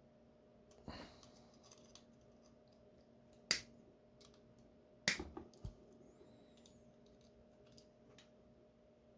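Sharp metallic clicks and snaps of a small tool prying at the retaining clip on a lock cylinder, with small ticks between; the loudest snaps come about three and a half and five seconds in.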